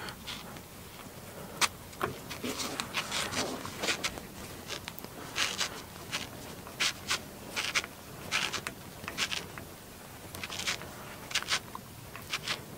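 Small hand screwdriver turning a tiny end-stop mounting screw in a 3D-printer's aluminium frame: irregular short scraping and clicking strokes, some in quick runs. The screw keeps turning without yet getting tight.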